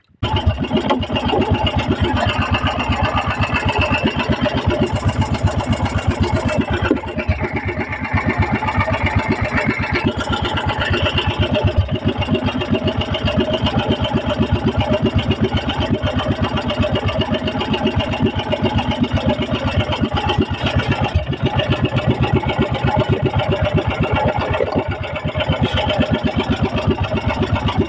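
Small fishing boat's engine running steadily, with a fast, even firing beat.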